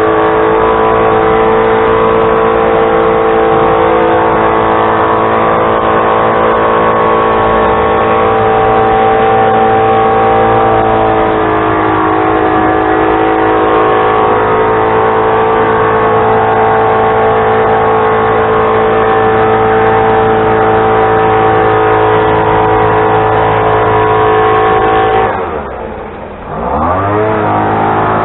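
An engine running steadily at high speed. Near the end it drops in speed and level for a second or two, then picks back up.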